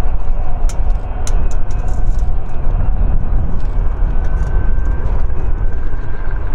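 Antonov An-124-100M Ruslan's four D-18T turbofan engines rumbling loudly as the freighter rolls along the runway after landing, with a faint thin whine coming in about four seconds in.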